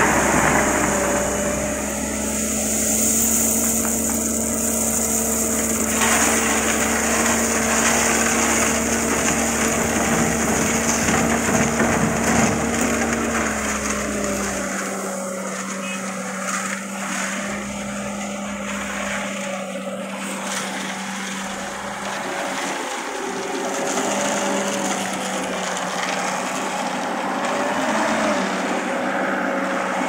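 Engine of a self-loading concrete mixer running steadily under load while the machine scoops and lifts a bucket of aggregate. Its note steps down slightly about halfway through, and the deep rumble under it fades soon after.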